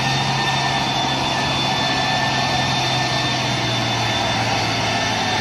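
Diesel engine of a Mitsubishi Fuso tanker truck running steadily as the truck drives slowly through deep mud.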